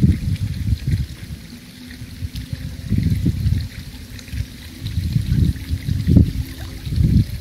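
Pool water sloshing and lapping in uneven swells as a floating body is drawn through it, with a faint steady low hum underneath.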